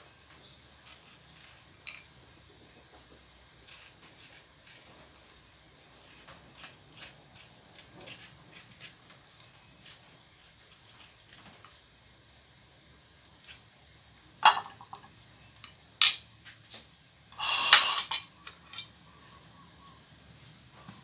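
Metal spoon scraping papaya seeds out of a halved papaya and tapping them onto a ceramic plate, soft scrapes and light ticks. About two-thirds of the way in come a few sharp clinks and a short clatter of cutlery and plates being handled.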